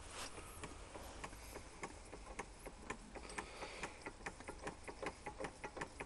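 Bing model steam engine starting after its flywheel is turned by hand, then running with a light, fast ticking of about five to six beats a second that grows steadier and slightly quicker.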